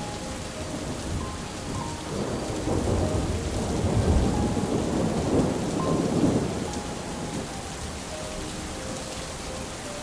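Rolling thunder over steady rain. The rumble swells about two seconds in, is loudest around the middle and fades away over about five seconds.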